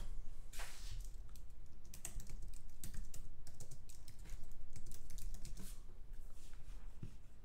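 Typing on a computer keyboard: runs of quick key clicks with short pauses.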